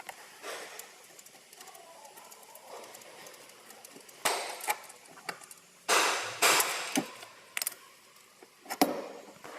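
Metal clunks, knocks and short scraping rattles of a car's steering column assembly being worked loose and pulled out after its mounting bolts are undone: a knock about four seconds in, a cluster of scrapes and clunks a couple of seconds later, and a sharp knock near the end.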